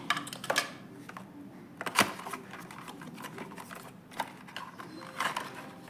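Packaging of a boxed 1:64 diecast model car being opened by hand: irregular clicks, snaps and rustles. The sharpest click comes about two seconds in.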